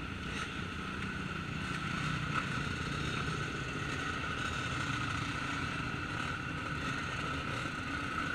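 Several motocross dirt bike engines running at idle and low revs as bikes ride slowly past, with a steady high hum throughout.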